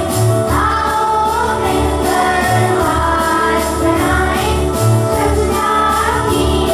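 A song: voices singing a melody together over music with a steady low beat.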